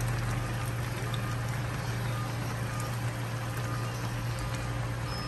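A pan of pork in vinegar broth simmering on a gas stove: a steady bubbling hiss over a low, even hum.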